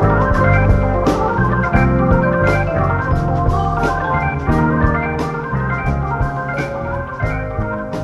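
Slowed-down, reverb-heavy jazz-funk recording led by Hammond organ chords over bass notes, with light percussion taps; the music gradually gets quieter.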